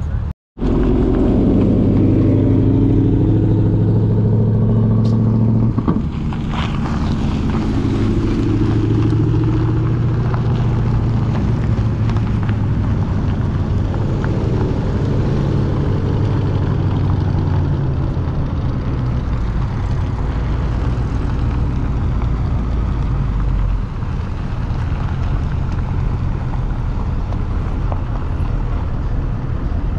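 Car engines and exhausts running as several cars pull away across a parking lot. A deep, steady exhaust note dominates for the first several seconds, then eases to a lower rumble about two-thirds of the way through.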